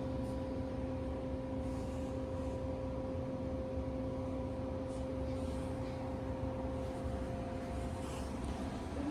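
Steady low rumble with a constant electrical hum of several held tones; one tone drops out near the end while a slightly higher one comes in shortly before.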